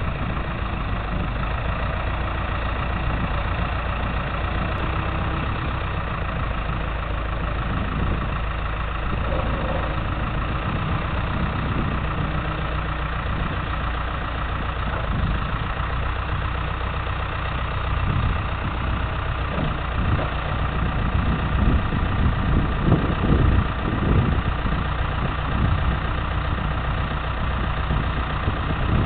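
Pettibone rough-terrain forklift's engine idling steadily while its raised boom is lowered, with uneven low rumbles in the second half.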